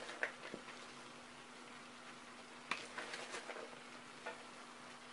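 Shredded cabbage tipped from a plastic bowl into a frying pan: faint rustling and a few light taps, over a low steady hum.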